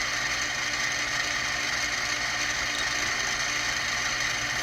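Benchtop mini mill running steadily with the workpiece turning in its spindle: an even mechanical whine and hum from the spindle motor and drive, with no cutting sound yet.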